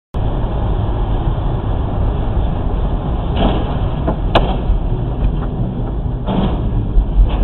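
Road noise inside a car driving fast on a rain-soaked highway: a steady low rumble of tyres and engine with a hiss of spray. A few short knocks come in the second half.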